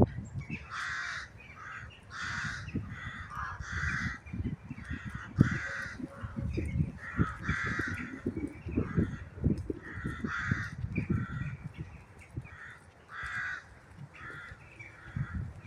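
Birds calling repeatedly outdoors: a steady run of short, rasping calls, about one or two a second, some overlapping as if from several birds, over a low rumble of wind or handling noise on the microphone.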